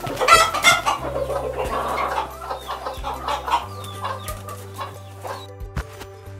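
Hens clucking, busiest in the first half, over background music with held low notes.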